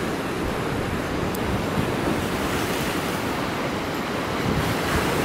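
Sea surf washing against a rocky shore: a steady rush of waves, with wind rumbling on the microphone.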